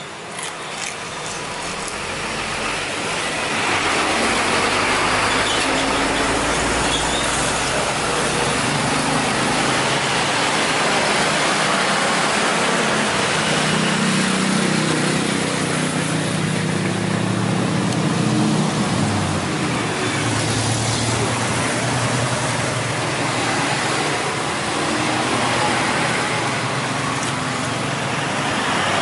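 Jet aircraft passing low overhead: a loud roar that builds over the first few seconds and then holds, with low droning tones that shift in pitch.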